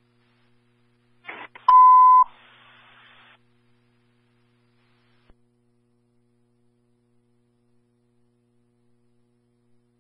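Police radio over a scanner: a brief crackle of static as a transmission opens, then a single loud beep at one steady pitch lasting about half a second, followed by about a second of open-channel hiss before it cuts off. The rest is near silence.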